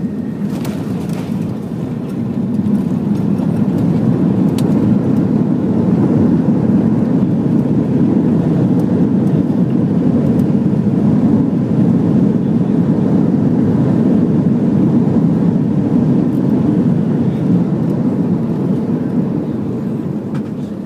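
Cabin noise of an Airbus A330-300 decelerating on its landing rollout: a loud, steady, deep rushing roar of the engines and the wheels on the runway. It swells a few seconds in, holds, and eases off near the end as the aircraft slows.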